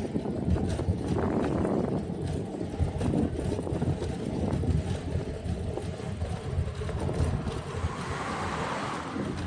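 Wind buffeting the microphones of an Insta360 X3 camera during a bicycle ride: an uneven, gusty rumble that turns hissier near the end.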